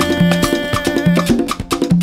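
Latin dance music in a salsa style, with a steady percussion beat of sharp clicks and a repeating bass line.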